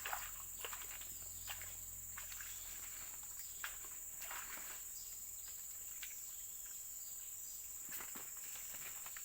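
A steady, high-pitched drone of insects, with scattered short rustles and crunches, like someone moving through dry leaves and undergrowth.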